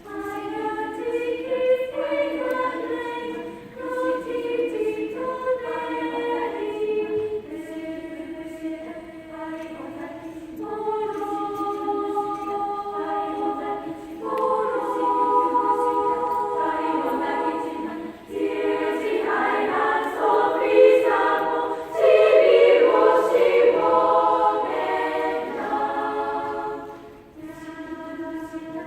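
Children's choir singing in parts, with long sustained notes. It grows fuller and louder from about halfway, peaking a little over two thirds in, then drops back to a softer passage near the end.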